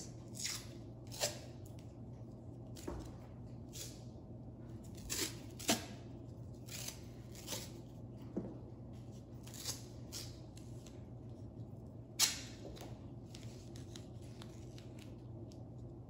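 Wide white tape being peeled off its roll, torn and pressed onto a countertop: a string of short, irregular ripping and crackling noises, the loudest about twelve seconds in.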